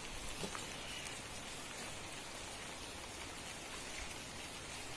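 Rain falling steadily: an even hiss.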